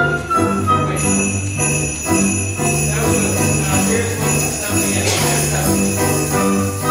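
Jingle bells shaken steadily, coming in about a second in, over a piano accompaniment with a repeating bass figure.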